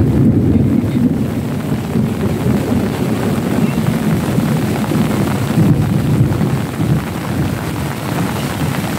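Steady low rumbling of wind buffeting the microphone, rising and falling in strength throughout.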